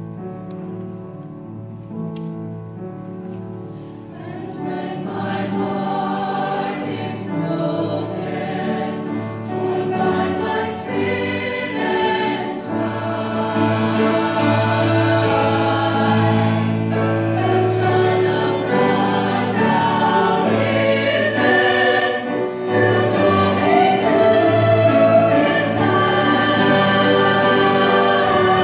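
Mixed choir of men's and women's voices singing; the voices come in about four seconds in and grow louder.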